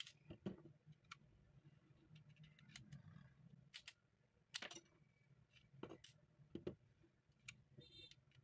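Near silence: faint room tone with a low hum and a handful of short, sharp clicks scattered irregularly through it.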